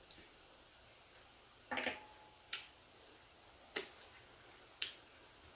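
Eating sounds: four sharp clicks about a second apart. The first and loudest has a brief metallic ring, a metal fork knocking the wooden board; the others are short mouth smacks and clicks.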